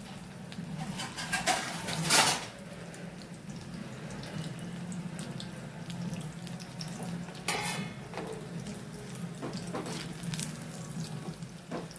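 Corn pakoras sizzling steadily in hot oil in a frying pan, with two brief louder spells of crackle or utensil noise, about two seconds in and again about seven and a half seconds in.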